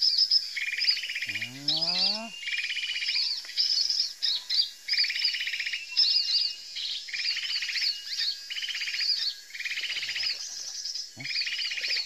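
Small songbirds calling: quick high chirps over a buzzy, rattling trill that comes back at a steady rhythm, about every second and a half.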